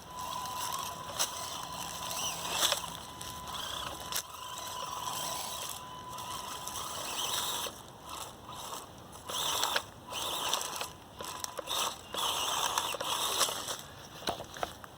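Axial SCX24 Deadbolt micro crawler's small brushed electric motor and gears whirring in stop-start bursts, with scattered clicks. A thin steady whine runs through the first half, then the whirring comes in short spurts.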